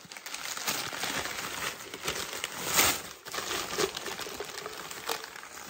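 White wrapping paper crinkling and rustling as an item is unwrapped by hand, with a louder rustle about halfway through.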